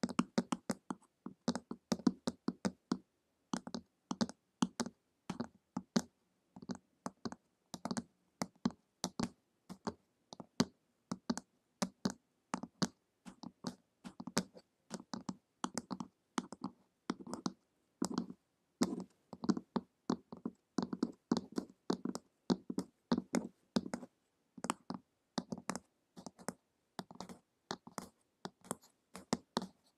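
Long fingernails tapping on a hard, glossy printed cover: a rapid, uneven run of sharp clicks, several a second, with short pauses between flurries.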